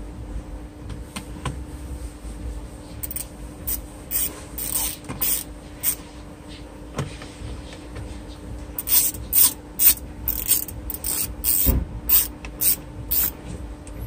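A screwdriver working screws on a plastic steering-column switch and clock-spring housing: a run of short scratchy strokes, sparse at first, then about two a second in the second half, over a steady low hum.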